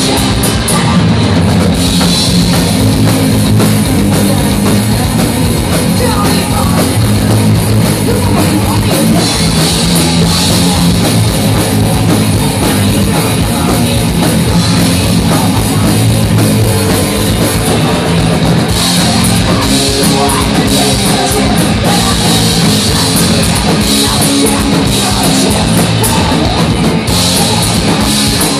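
Rock band playing live and loud: electric guitars, bass guitar and drum kit, with a woman singing into a microphone.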